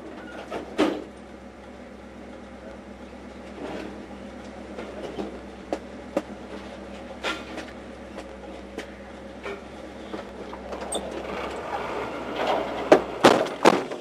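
Scrap metal clanking and banging as pieces are pulled and thrown out of a pickup truck's bed, heard from inside the cab, with irregular knocks that come thickest and loudest near the end. A steady low engine hum runs underneath.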